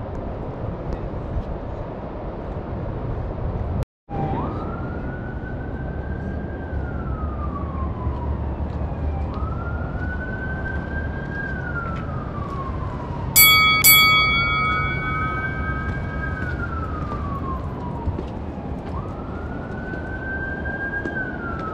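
Street noise, then, after a brief dropout about four seconds in, an emergency-vehicle siren wailing up and falling back in slow cycles of about five seconds. About thirteen seconds in, two sharp ringing strikes half a second apart are the loudest sounds.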